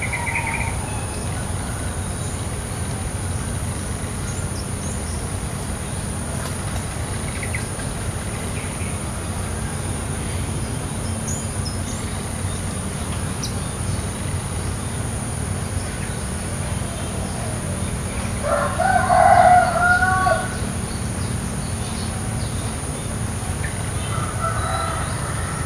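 A domestic rooster crows once, a call of about two seconds, about three-quarters of the way through. Under it runs a steady low rumble and a constant high insect drone, with a few faint short bird chirps now and then.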